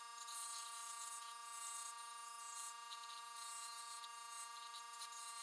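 Benchtop scroll saw running and cutting a thin wooden stencil blank: a steady electric buzz with the hiss of the reciprocating blade through the wood.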